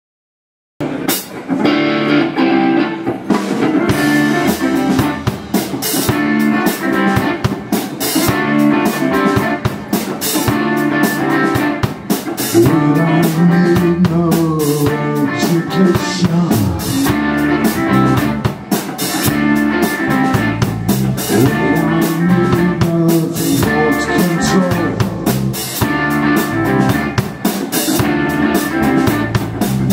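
Live rock 'n' roll band playing with electric guitars, bass guitar and drum kit, coming in about a second in.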